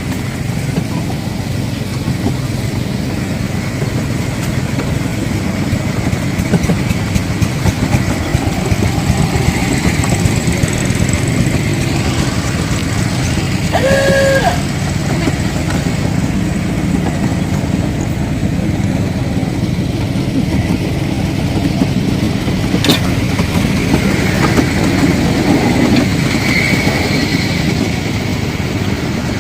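Ride-on miniature railway train running along the track, a steady loud rumble of the locomotive and wheels. A short pitched tone sounds briefly about halfway through.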